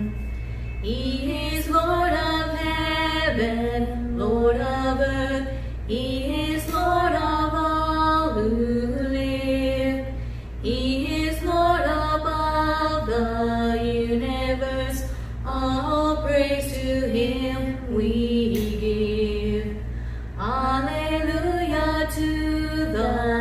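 Two women singing a worship song together, in phrases of long held notes.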